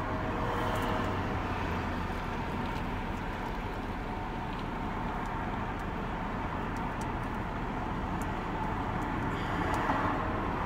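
Steady low hum inside a stopped car's cabin, with a few faint light clicks.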